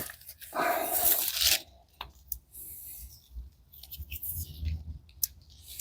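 Hand work with a screwdriver and small gearbox parts: a scraping rustle about a second in, then a few light metallic clicks, while a synchronizer key and its spring are being set in place.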